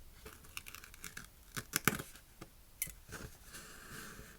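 Sticker sheets and their packaging being handled: crinkling and crackling with a string of sharp clicks, then a short sliding rustle near the end.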